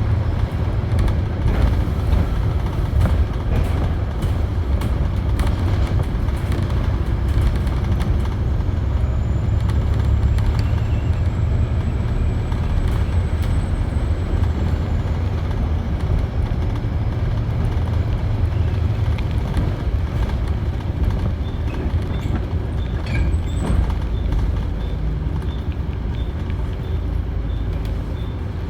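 Volvo B7TL double-decker bus's six-cylinder turbodiesel running under way, with a thin high turbo whistle that rises about eight seconds in, holds, then falls away. A few clicks and a regular ticking come in over the last several seconds.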